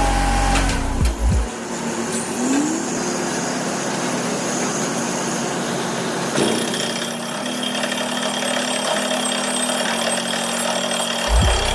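Truck-mounted DTH borewell drilling rig running under load, its engine and air compressor making a steady loud noise, with heavy low pounding from the down-the-hole hammer in the first second or so and again near the end.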